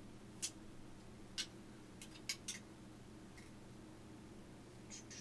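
Sharp plastic and metal clicks from handling a TONOR microphone and fitting it into its shock mount: about five clicks in the first two and a half seconds, then a few more near the end, over a faint steady hum.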